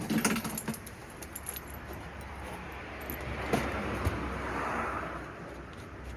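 Metal tools and parts clinking and rattling, loudest right at the start, with a couple of knocks about three and a half and four seconds in.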